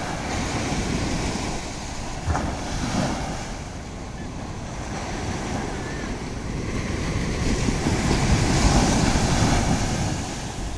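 Sea surf breaking and washing up the beach, with wind buffeting the microphone. There is a brief knock a little over two seconds in, and the surf swells loudest from about seven to ten seconds in as a wave crashes on the shore.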